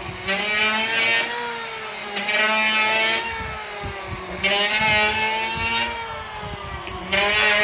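A motor whining, its pitch rising and falling, with louder surges about every two seconds and a steady low hum beneath.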